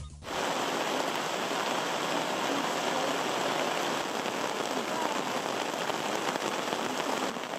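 Steady rain falling, with water running off the edge of a gazebo canopy.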